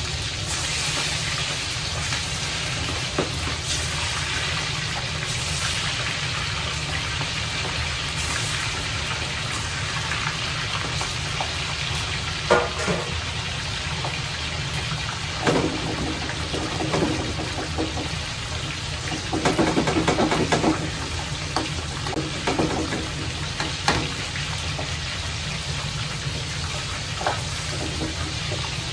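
Hot oil bubbling and sizzling in a wok as food deep-fries, over a steady low rumble. A few knocks and clatters of utensils come through, the loudest cluster about two-thirds of the way in.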